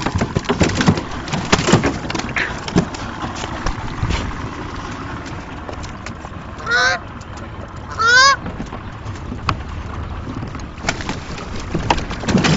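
A goose honking twice, about a second and a half apart, each call rising in pitch. Scattered knocks and clatter, loudest in the first two seconds and near the end.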